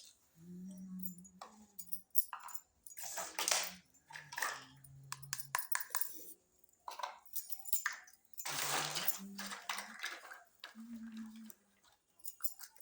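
Small plastic toy kitchen pieces clicking and clattering, with bursts of packaging rustle, while someone hums low and briefly at a few points.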